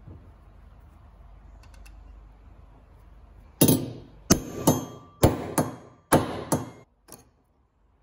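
A hammer strikes a steel centre punch about eight times, roughly two blows a second, each with a short metallic ring, punching a row of dimples along a steel strip held in a bench vise. The blows start about three and a half seconds in.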